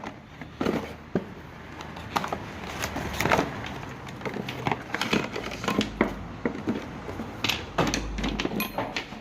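A parts box being opened and rummaged by hand to take out a new clutch pedal actuator: irregular rustling, taps and clicks.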